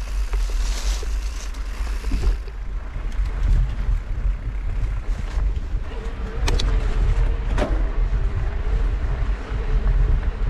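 Wind rushing over the microphone and knobby tyres rolling over a dirt singletrack on a moving mountain bike. Two sharp knocks come about six and a half seconds in and again a second later.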